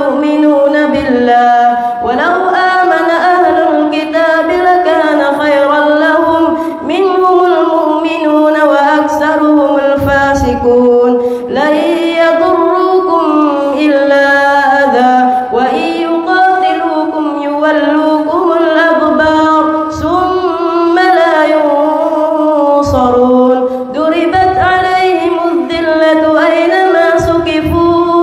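A boy's high voice chanting Quran recitation in long melodic phrases, with a short breath between phrases every few seconds.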